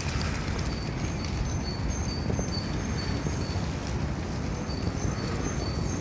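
Wind blowing with a steady low rumble. A small bird chirps short, high, evenly pitched notes in two runs over it, in the first half and again near the end.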